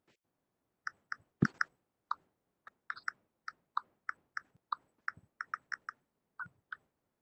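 Computer keyboard typing: about twenty short, sharp clicks at an uneven pace.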